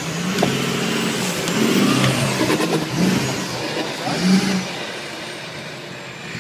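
Four-wheel-drive pickup engines revving hard under load on a steep dirt climb, the note rising and falling.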